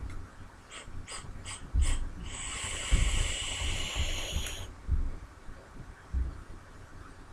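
A person takes a draw on a vape through a Goon 22mm dripping atomizer. Four short clicks come first, then a steady hiss of the draw lasting about two and a half seconds that stops sharply. A quieter breathy exhale follows.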